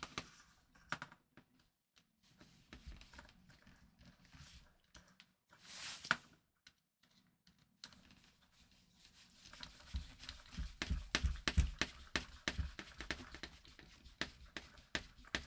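Workbench handling sounds: a screwdriver turning a screw on the metal bracket of a car central-locking actuator, with small metal and plastic clicks and knocks. There is a short scrape or rustle about six seconds in, and the clicking becomes rapid and dense in the second half.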